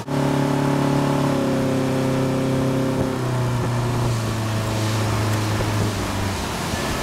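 Motorboat engine running under way while towing, over the rush of its wake. Its note drops a step about three seconds in.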